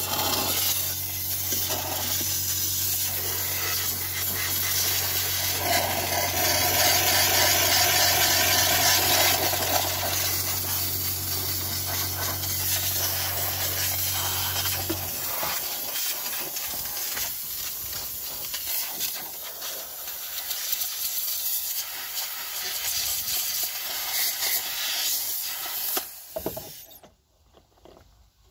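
Vaporella steam cleaner jetting steam onto an engine, a steady hiss. A low steady hum runs under it for the first half and then stops, and the hiss cuts off suddenly near the end.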